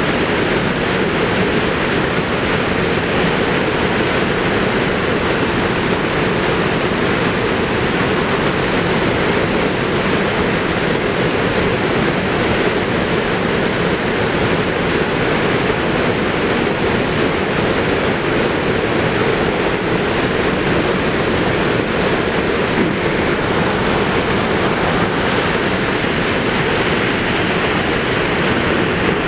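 Water pouring over a broad, low waterfall: a loud, steady, unbroken rush of falling water.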